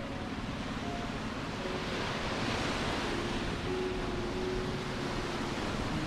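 Surf washing onto a sandy beach: a steady rushing hiss of breaking waves that swells a little partway through.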